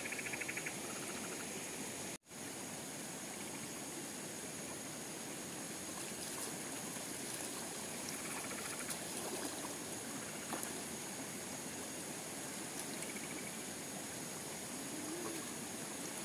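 Shallow rocky stream running steadily, under a steady high insect drone and short chirping insect trills now and then. The sound cuts out completely for a moment about two seconds in.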